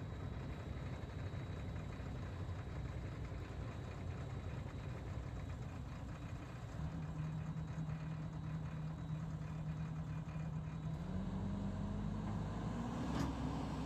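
Diesel engine of a JCB tracked excavator running at idle with a steady low rumble. A steady hum sets in about seven seconds in and steps up in pitch around eleven seconds, as the engine speed rises.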